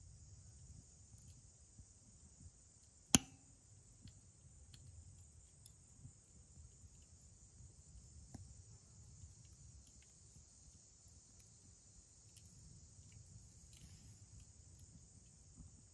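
A steady, high-pitched insect chorus drones faintly throughout, over a low rumble. A single sharp crack sounds about three seconds in, with a few faint ticks scattered around it.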